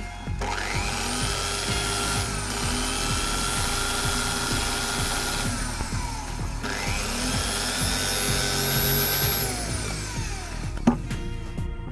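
Electric hand drill with a polishing bit, used to polish the exhaust valve port of a motorcycle cylinder head. It runs twice: each time it winds up to a high steady whine, holds it for a few seconds, then winds down. Background music plays throughout, and there is a sharp click near the end.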